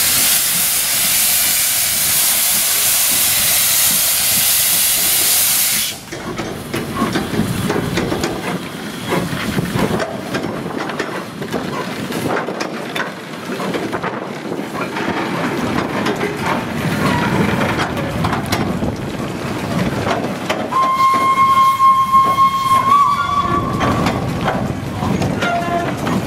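Small saddle-tank steam locomotive starting off with a train of old goods wagons. Steam hisses loudly from the open cylinder drain cocks and cuts off suddenly about six seconds in. After that comes the rumble and knocking of the engine and wagons rolling on the track, then a steam whistle held for about two seconds, rising slightly in pitch at its end.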